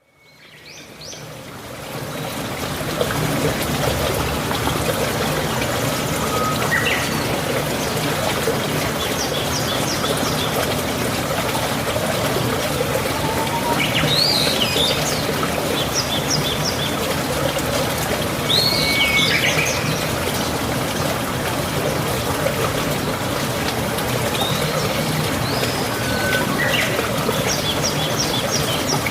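Steady running water with birds chirping now and then over it, fading in over the first few seconds.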